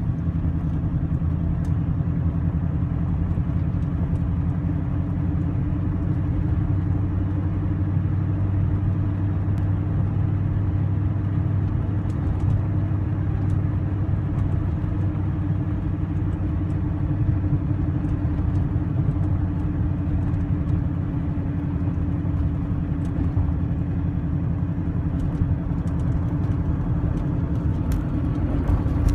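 TVR Chimaera 400's 4.0-litre Rover V8 running steadily at low revs with a misfire.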